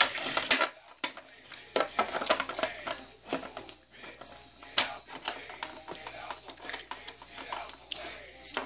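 Plastic toys and a plastic toy playset being handled, making irregular light clicks and clatters, with a sharper knock just under five seconds in.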